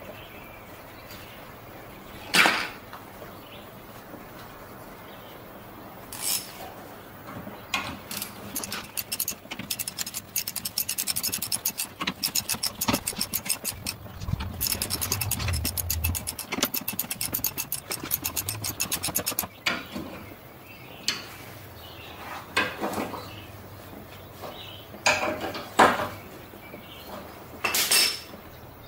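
Hand ratchet clicking in fast runs of strokes for about ten seconds mid-way, as bolts on the sway bar bushing brackets are worked under the truck. Several single sharp metallic knocks of tool on metal come before and after the ratcheting.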